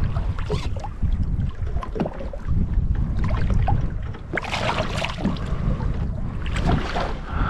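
A hooked striped bass splashing at the surface beside a kayak as a hand reaches into the water for it, in bursts strongest about halfway through and again near the end, over steady wind rumble on the microphone.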